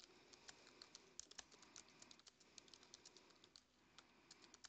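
Faint typing on a computer keyboard: quick, irregular key clicks, several a second, with a brief pause a little before the end.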